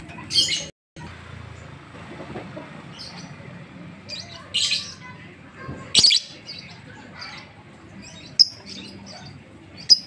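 Caged Fischer's lovebird giving short, sharp, high chirps at irregular intervals, a few louder than the rest: the rapid ticking 'ngetik' call that lovebird keepers show off.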